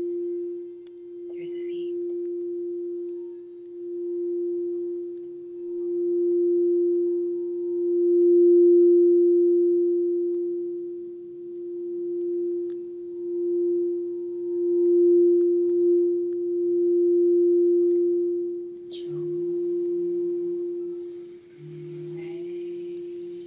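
Large frosted quartz crystal singing bowl sung by circling its rim with a mallet: one steady, pure tone that swells and fades in slow waves. Near the end the playing stops and the bowl rings on.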